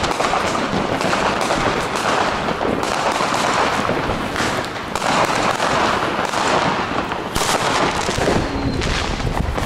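Fireworks and firecrackers going off on all sides: a dense, unbroken stream of bangs and crackling, loud throughout.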